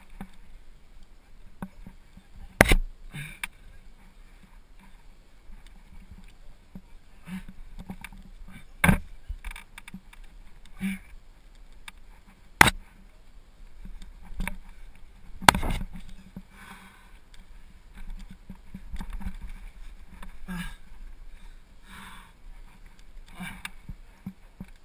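Knocks and scrapes of a climber moving up rock, heard at a helmet-mounted camera: five sharp knocks a few seconds apart, with softer scuffing and rubbing between them.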